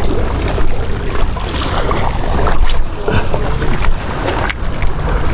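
Wind buffeting the microphone over the wash of sea waves, with a sharp click about four and a half seconds in.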